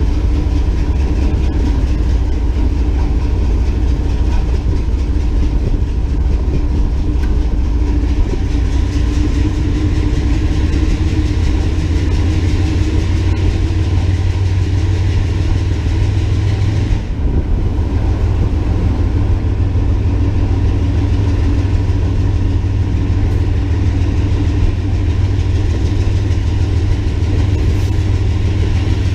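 Diesel locomotive running steadily while the train rolls along the track: a continuous low rumble with a steady hum, with a short dip in the noise about two-thirds of the way through.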